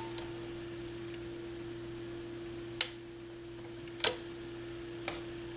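Four sharp clicks from a Proton AA1150 power amplifier being power-cycled to test whether its protection relays click in. The two loudest come about three and four seconds in, over a steady low hum.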